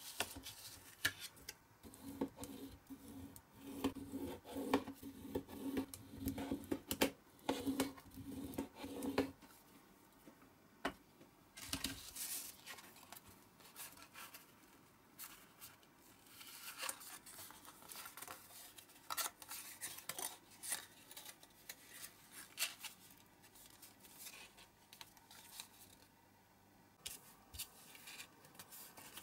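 Thin printed card being cut and handled: a run of short scraping strokes for the first nine seconds or so, then rustling, creasing and small clicks as the card blank is folded into a box.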